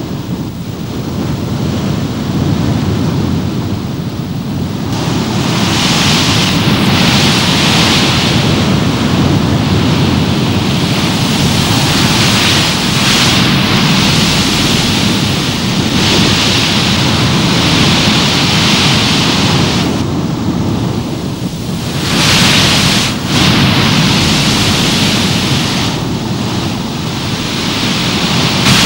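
Stormy wind and heavy sea: a steady rushing noise whose hiss swells and fades every few seconds.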